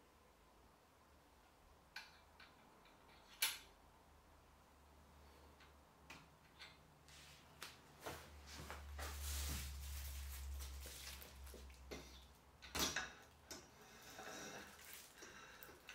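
Handling of a folding wagon's metal frame and fittings: scattered light clicks and knocks, with a sharp click about three and a half seconds in and another near thirteen seconds, and a stretch of rubbing and rustling in between.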